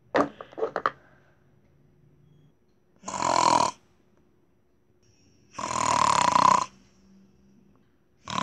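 A person imitating snoring: three drawn-out snores about two and a half seconds apart, the last one starting near the end. A few quick clicks and knocks come just before them, in the first second.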